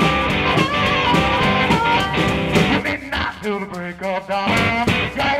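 Background rock music with guitar; a voice starts singing about halfway through.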